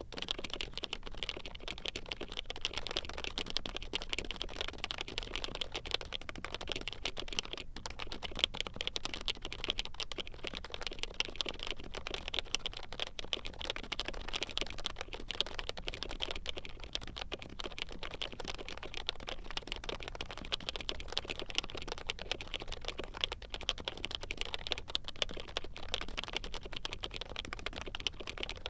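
Continuous fast typing on a Norbauer Heavy Grail keyboard with lubed HHKB Pro 3 Topre switches and Domikeys keycaps: a dense, steady stream of muted, deep 'thocky' keystrokes.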